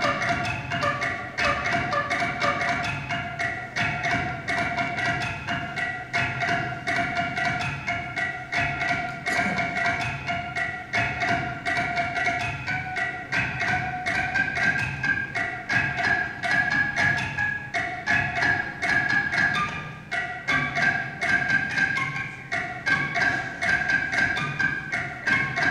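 A homemade rhythm machine: a long tube studded with cable ties turning on a lathe, the tie ends flicking against bottles and cans held to it, giving a fast, even stream of clicks with ringing, pitched tones. The pitches shift about halfway through.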